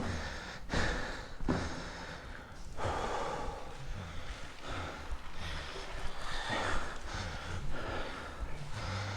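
Heavy, laboured breathing of a man climbing a long flight of stairs, loud breaths drawn and blown out about once a second from the exertion.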